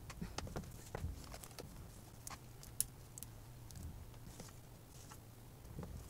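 Faint rustling and crackling of sphagnum moss being pressed by hand onto a plastic mesh panel, with scattered small clicks and one sharper click near the middle.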